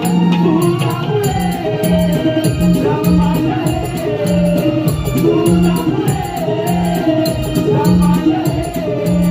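Live Konkani folk stage music: a bending vocal melody over a steady, evenly repeating drum beat and rhythmic percussion strokes.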